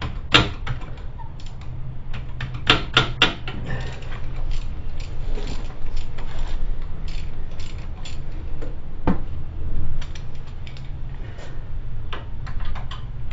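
Hand ratchet and metal tools clicking and clinking against the front wheel hub bearing's mounting bolts, with a quick run of sharp clacks about three seconds in, over a steady low hum.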